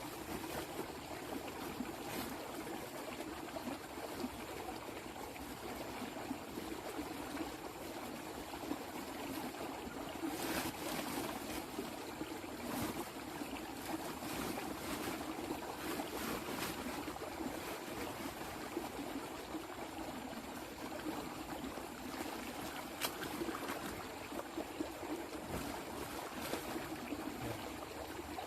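Steady running water, a stream-like trickle, with scattered faint clicks.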